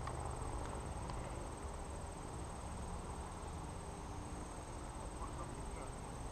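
Outdoor ambience: a steady, high-pitched insect trill with a fine pulsing, over a low rumble.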